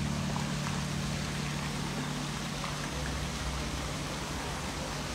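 Steady hiss of splashing water, with a low sustained note fading out underneath over the first few seconds.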